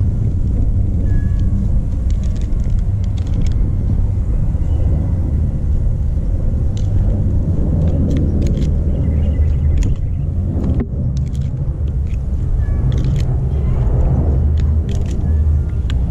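A steady low rumble, with scattered light clinks and scrapes of a metal spoon against a ceramic bowl as chicken pieces are mixed with seasoning.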